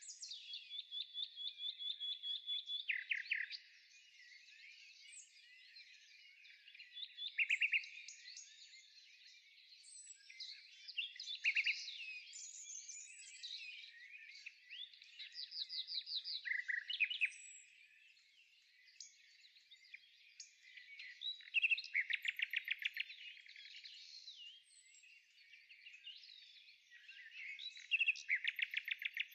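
Birds singing: a busy chorus of overlapping chirps and whistles, with a loud rapid trill breaking in every few seconds.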